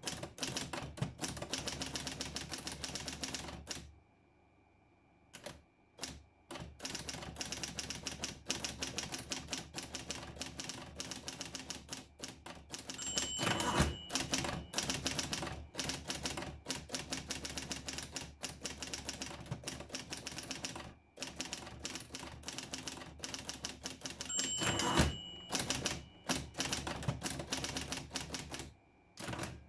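Underwood Documentor electric typewriter typing in fast runs of keystrokes over the hum of its running motor, pausing briefly twice. Twice, a bell-like ding sounds together with a heavy thump, the loudest moments: the end-of-line bell and the carriage return.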